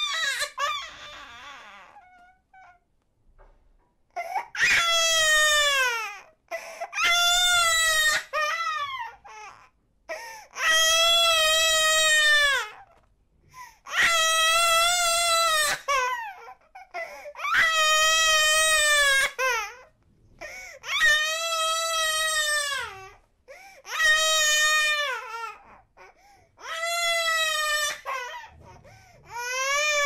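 An 8-month-old baby crying: after a short cry and a pause of a few seconds near the start, about nine wails of around two seconds each follow one another with short gaps for breath, each falling in pitch at its end.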